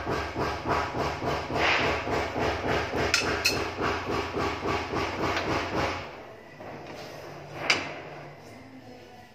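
Plastic spatula stirring and scraping a simmering dark sauce around a frying pan, in quick rhythmic strokes about three a second, stopping about six seconds in. A single sharp tap follows near the end.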